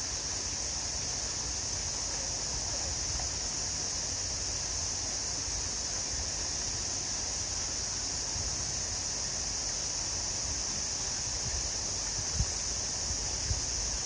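Steady high insect drone over a low outdoor rumble, with two soft thumps near the end.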